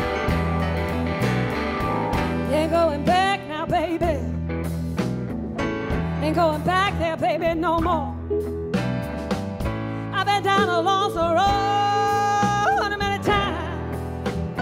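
Live blues band playing: electric guitars, bass, drums and keyboards together, with a lead line of bending, wavering notes and a long held note near the end.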